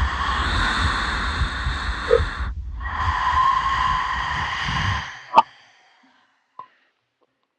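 Amplified human breathing: two long, hissing breaths, then a single sharp click about five seconds in.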